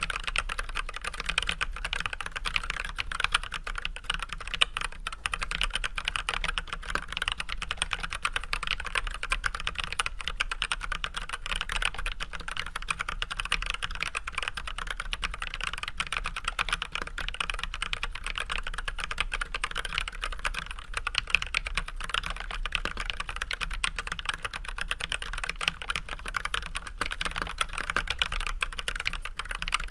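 Steady normal-speed typing on an Archon AK87 hot-swap mechanical keyboard fitted with unlubed Everglide Red 67g linear switches with switch films and white PBT keycaps: a dense, continuous stream of key clacks.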